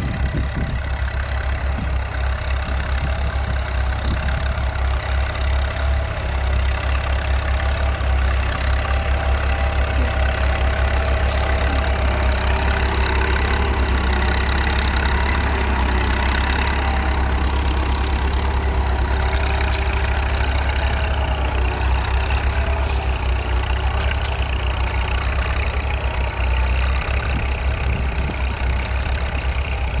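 Fordson E27N tractor engine running steadily as it pulls a plough through the soil.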